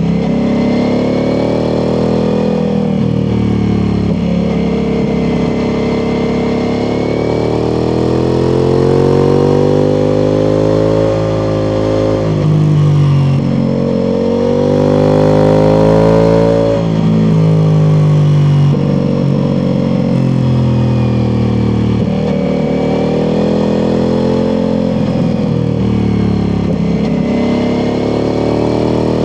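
Ducati Multistrada V4 Pikes Peak's V4 engine through an Akrapovic exhaust, under way: the engine pitch climbs on acceleration and falls back again and again, with the loudest, hardest climb a little past halfway ending in a sudden drop.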